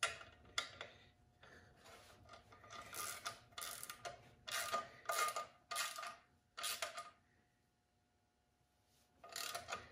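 Socket ratchet clicking in a run of short strokes as a half-inch nut is tightened down on a carriage bolt, compressing the lock washer beneath it. The strokes come in quick succession through the middle, stop for about two seconds, then one more stroke comes near the end.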